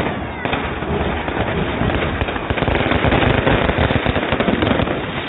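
Fireworks going off in a dense, continuous crackle of many rapid small bangs and pops, busiest in the middle.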